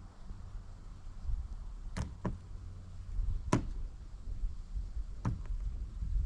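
Five sharp knocks over a steady low rumble: a pair about two seconds in, one in the middle, and another pair near the end.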